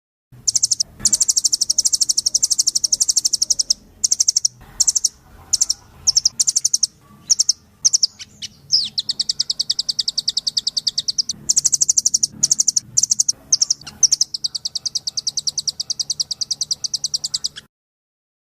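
Recorded songbird song played as masteran, a training recording for songbirds: long, fast, high-pitched trills of rapidly repeated chirps in several phrases, with scattered single chirps and a quick sweeping whistle midway. It starts just after the beginning and cuts off abruptly near the end.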